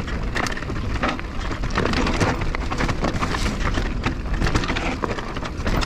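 Canyon Torque enduro mountain bike riding down a rocky dirt singletrack: the tyres crunch over loose stones and gravel, with many quick clicks and rattles from the bike and a steady low rumble throughout.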